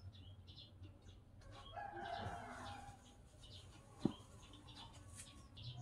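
A rooster crowing in the background about two seconds in, over small birds chirping on and off. About four seconds in there is a single sharp knock, a small plate set down on a wooden table.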